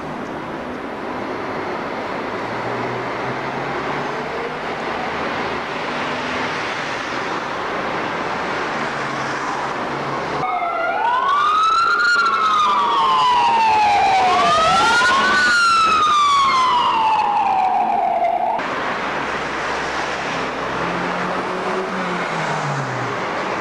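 A fire brigade siren wails for about eight seconds over city street traffic. Each sweep rises in pitch and then falls slowly, about three seconds apart, and the siren starts and cuts off abruptly. Before and after it there is steady street traffic noise.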